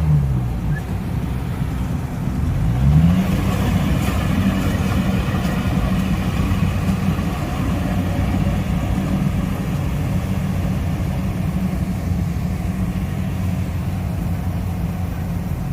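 Kubota crawler combine harvester's engine running. Its pitch dips at the very start, rises about two to three seconds in, and then holds steady at higher revs.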